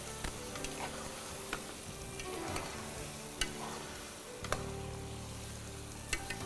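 A spoon stirring fish, tomato and chili frying in oil in a pot, with a soft sizzle and a few sharp clicks of the spoon against the pot.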